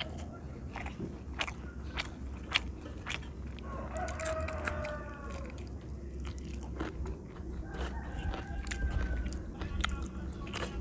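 Close-up mouth sounds of a man chewing a handful of rice and fried vegetables, with irregular crunchy clicks and smacks throughout.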